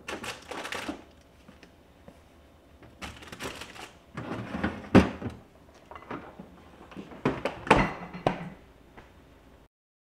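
Vegetables being handled and set into a clear plastic fridge drawer and organizer bin: rustling and hollow plastic knocks in several bursts, with the sharpest knocks about halfway through and again a few seconds later. It stops abruptly near the end.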